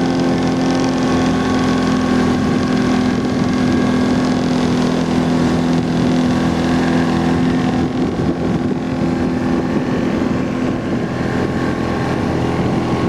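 Speedboat engine running at a steady speed, with water rushing and wind buffeting the microphone. About eight seconds in, the engine hum weakens and the wind and water noise becomes rougher.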